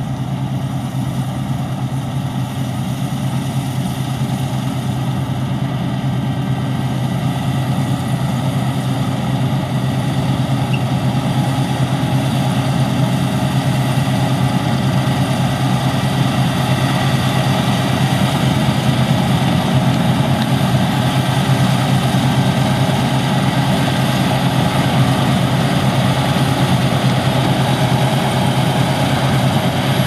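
Claas Lexion 670 combine harvester running under load while cutting barley: a steady, heavy engine and machinery drone that grows gradually louder as the machine comes closer.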